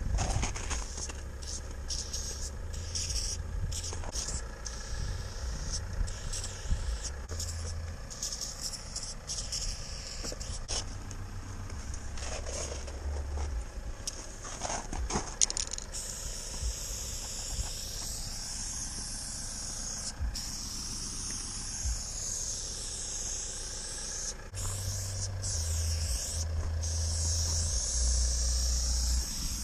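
Aerosol spray paint can hissing as chrome paint is sprayed onto a wall, in short bursts with brief pauses at first, then an almost unbroken spray from about halfway. A low rumble lies underneath.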